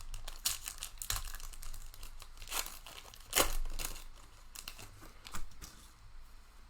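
Plastic wrapper of a trading card pack being torn open and crinkled, a run of irregular crackles and rips, busiest in the first few seconds.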